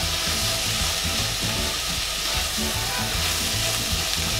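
Sliced onions sizzling in butter in a stainless steel saucepan, stirred with a wooden spoon, as they are cooked down to brown. A steady frying hiss.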